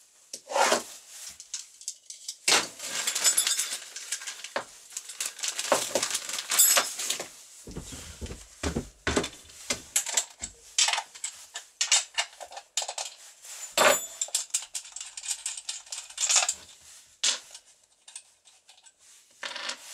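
Irregular metal clinks and rattles as a combination wrench, bar nuts and a guide bar are handled against a chainsaw's body, with plastic wrapping rustling and a few duller knocks on the workbench. It is the sound of the bar being fitted to a new Husqvarna 365.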